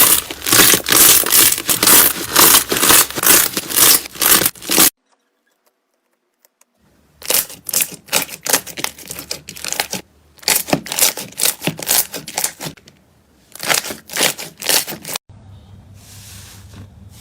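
Slime being squeezed and worked by hand, with rapid crackling pops in bursts. It stops for about two seconds in the middle, and near the end a quieter, softer handling sound takes over.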